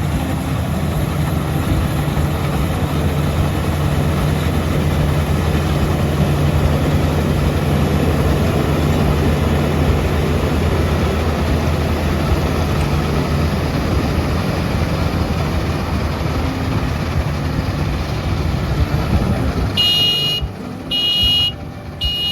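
Rice combine harvester running steadily: an engine hum under a dense mechanical rush. About 20 seconds in, a high beep starts repeating about once a second.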